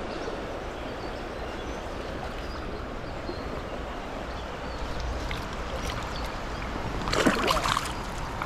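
Steady rush of fast, high creek water over rocks. About seven seconds in, a short, louder splashing burst.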